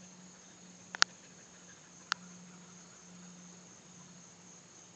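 Field insects trilling steadily in a high, even tone, with a faint low hum beneath. Sharp clicks, two close together about a second in and another about two seconds in, are the loudest sounds.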